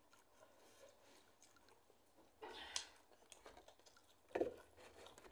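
Faint chewing of bread and noodles with small mouth clicks, and two louder short bursts about two and a half and four and a half seconds in.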